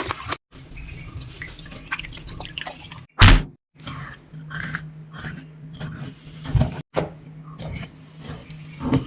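Kitchen food-preparation sounds: scattered small clicks and knocks of utensils and dishes being handled, with one loud thump about three seconds in.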